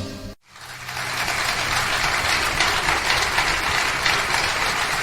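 The last of the music dies away within the first half second, then an audience applauds, steady, dense clapping that runs on.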